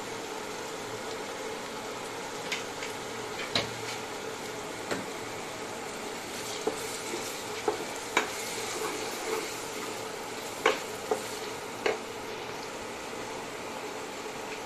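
Sliced onions and spices sizzling steadily in hot oil in a wok while being stirred with a spatula, which knocks sharply against the pan several times.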